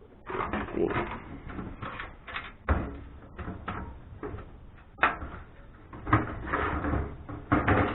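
Irregular knocks, clatter and scraping of metal parts as a power supply is worked out of a desktop computer's case.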